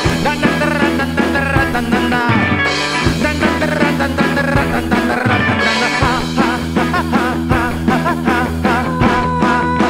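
Rock band music playing, with a steady drum beat under layered instruments.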